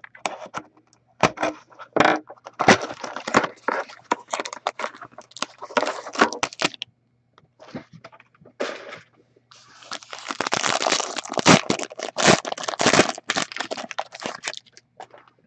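Cardboard trading-card box being slit and pulled open, with sparse crackles, then a foil card pack crinkling loudly as it is torn open by hand, densest near the end.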